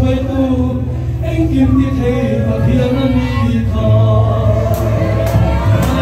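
A congregation singing a Mizo spiritual hymn (zai) together, many voices in unison, accompanied by a steadily struck drum.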